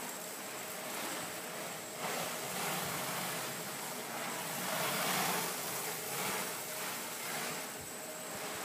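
Stretch film being pulled off the roll of a hand-held stretch film dispenser as it is wrapped around a pallet load: a steady rustling hiss that swells and fades as the film is drawn out.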